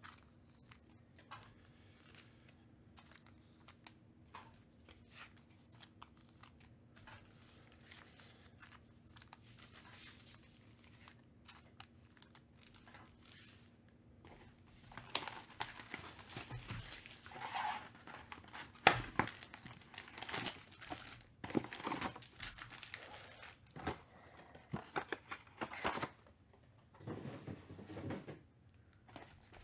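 Plastic shrink wrap crinkling and tearing as a sealed trading-card box is opened, with cardboard and foil packs being handled. Faint scattered clicks for the first half, then dense crinkling and tearing from about halfway through.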